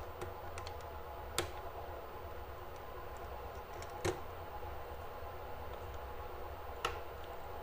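A few sharp clicks and taps of a screwdriver working the terminal screws of a plastic miniature circuit breaker, three in all, spaced a few seconds apart, over a steady low hum.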